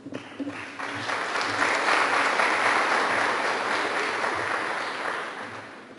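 Audience applauding: the clapping swells over the first two seconds and dies away near the end.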